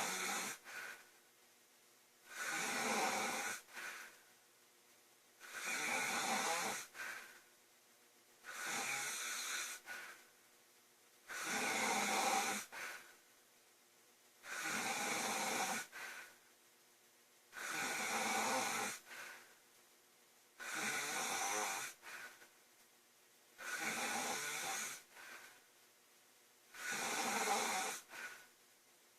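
A sleeping woman snoring in a steady rhythm, about one snore every three seconds. Each snore lasts about a second and a half and is followed by a brief short puff of breath.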